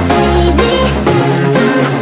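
Electronic dance music with deep, shifting bass notes.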